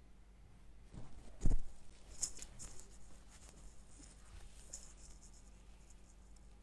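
Handling noise: a dull thump about a second and a half in, then a few seconds of light rustling and clicking.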